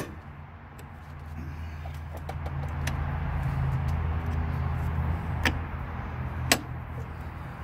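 Breaker bar and socket on an engine mount bolt, giving two sharp metal clinks about a second apart near the end as the bar is repositioned, with a few light ticks earlier. Under them runs a low, steady hum that swells and then eases.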